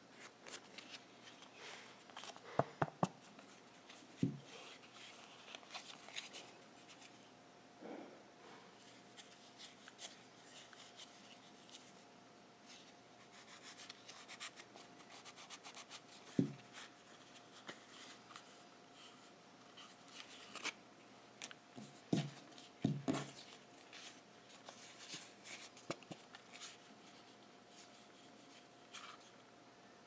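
Hands handling pieces of leather and a plastic seat-belt buckle on a table: soft rubbing and rustling with scattered light clicks and several louder knocks, over a faint steady hum.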